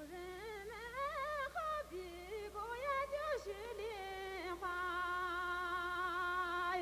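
A woman's solo voice singing a slow, unaccompanied melody with sliding, ornamented turns, then settling on one long held note in the second half.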